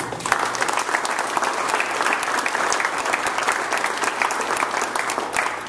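A room of people applauding, many hands clapping at once; it starts abruptly and tails off near the end.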